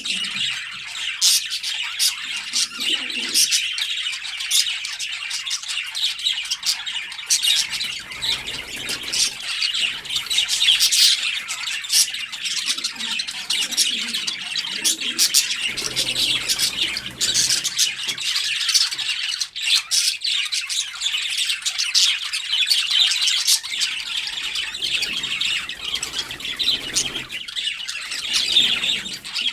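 Many birds chirping and squawking at once: a dense, continuous chatter of short high calls.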